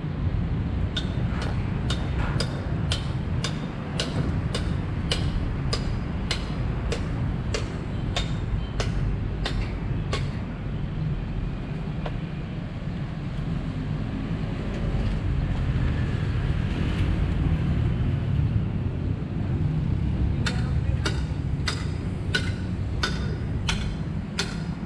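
Footsteps at a steady walking pace, about two a second, which stop for about ten seconds in the middle and then resume. Under them runs a steady low rumble.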